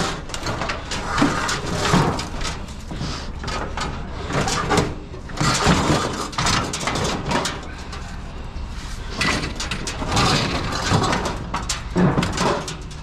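Sheet-metal barbecue being flipped and shifted by hand, with irregular clanks, knocks and scrapes.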